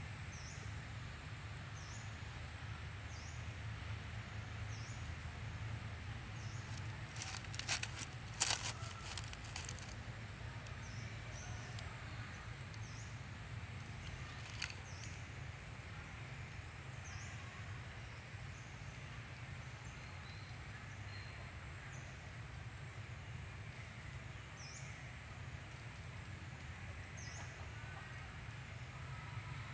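Quiet outdoor ambience: a steady low rumble under a short, high chirp that repeats about every second and a half. A brief cluster of sharp clicks comes about eight seconds in, with a single click a few seconds later.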